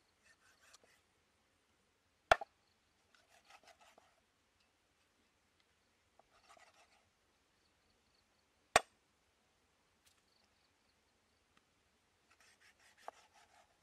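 Food being prepared: two sharp chops about six seconds apart, with short bursts of soft scraping or rubbing in between.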